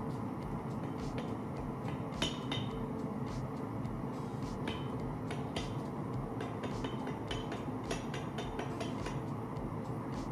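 Light, irregular metal-on-metal clinks and taps from rebar being worked at the anvil, over a steady low roar.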